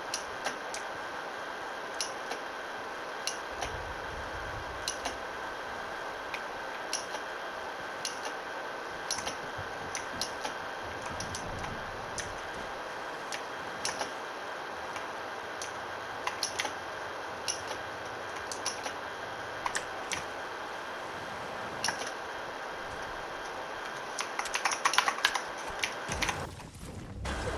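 Keyboard keys and mouse buttons clicking during PC gameplay, scattered about once a second, then a rapid flurry of key presses near the end, over a steady low hum.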